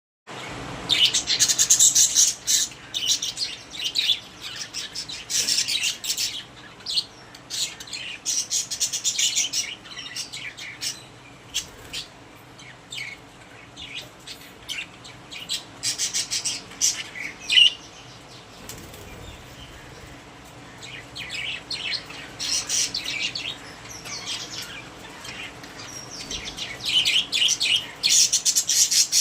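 Pet budgerigars chattering and warbling in bursts of rapid high chirps, with a quieter lull about two-thirds of the way through.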